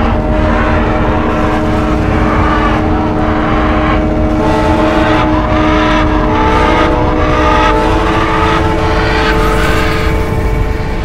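Loud, dense wash of vehicle and traffic noise with several steady horn-like tones held over it, some dropping out and others coming in partway through.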